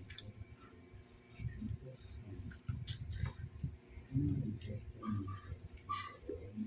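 Eating rice by hand: scattered small clicks and taps of fingers and food against a plate, with chewing and mouth sounds.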